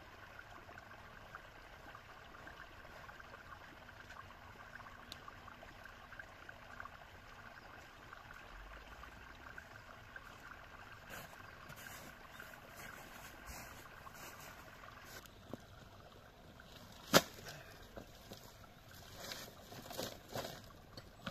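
Faint, steady trickling water. After about fifteen seconds it drops away, then comes one sharp crack, and several softer knocks and rustles follow near the end.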